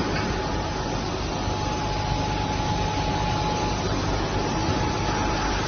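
Woodworking machine running steadily: a constant mechanical noise with a thin, steady whine over it.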